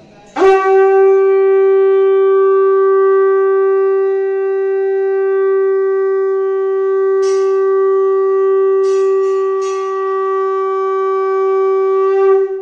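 Conch shell (shankh) blown in one long steady note, starting about half a second in and held for nearly twelve seconds.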